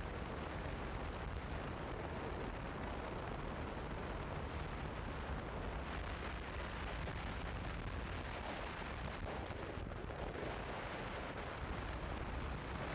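Wind buffeting the microphone of a motorcycle at road speed, a steady rumble, mixed with the Honda CB150F's engine running.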